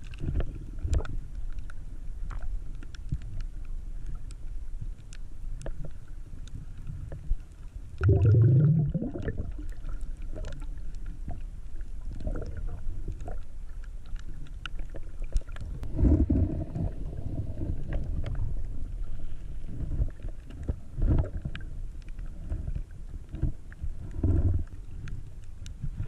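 Underwater ambience picked up by an action camera in its waterproof housing during a reef freedive: a steady muffled low rumble with scattered sharp clicks, and a louder low rush of water about eight seconds in, with shorter ones later.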